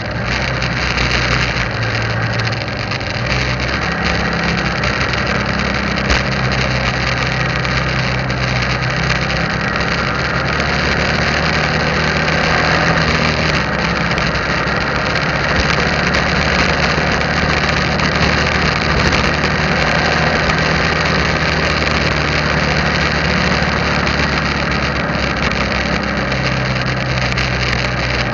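Motorbike engine running steadily while riding, its pitch shifting a little a few times with speed, under constant wind and road noise.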